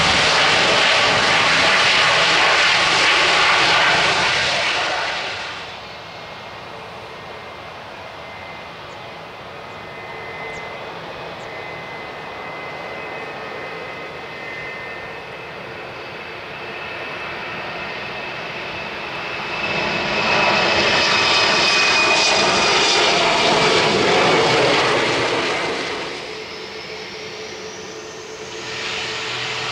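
Air Transat Airbus A321neo's jet engines running loud on its landing roll along a wet runway, cutting off about five seconds in. Quieter jet engine noise follows, then a second loud surge of jet noise with a falling whine about two-thirds of the way through. Near the end an ATR 72 turboprop drones steadily, with a rising whine as its engines spool up on the runway.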